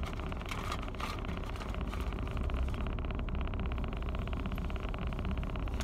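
Car engine idling steadily, heard from inside the cabin as a low rumble with a fast, even pulse. A couple of short rustles come about half a second and one second in.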